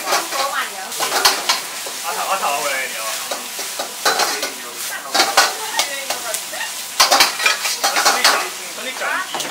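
A metal ladle scraping and clanking in a wok as rice is stir-fried over high heat, with the food sizzling. Sharp ladle strikes come at irregular moments, the loudest about a second in and again about seven seconds in.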